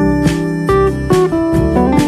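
Background music: a guitar-led track with strummed and plucked notes at a steady pace.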